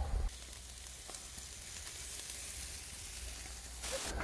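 Shashlik of meat and salted pork fat sizzling on skewers over wood embers, a steady hiss. A brief louder rush of noise comes near the end.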